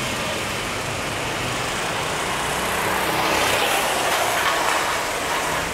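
Sodi RT8 rental karts running around a wet track, a steady mix of small-engine noise and hiss that swells about halfway through as a kart comes closer, then eases off.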